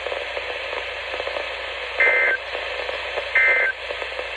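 Steady radio hiss, then two short two-tone data bursts about 1.4 seconds apart. These are the Emergency Alert System (SAME) end-of-message tones that close an alert broadcast.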